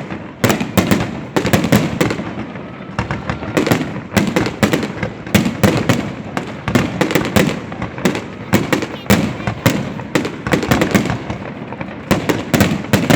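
Fireworks going off in rapid succession: a dense, continuous run of sharp bangs and crackles, several a second.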